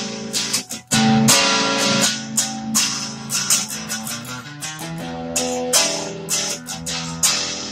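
Telecaster-style electric guitar played through a Fender Frontman 15G amp on a crunchy, lightly overdriven blues tone, picking a run of single notes and double-stops. The playing stops briefly just under a second in, then carries on.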